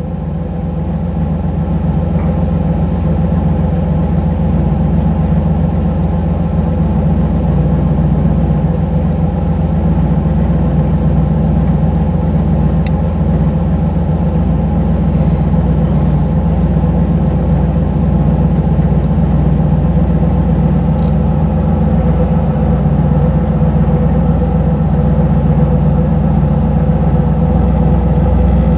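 1985 Camaro IROC-Z's 305 tuned-port-injected V8 idling steadily at a cold-start fast idle of roughly 1,100 rpm while it warms up.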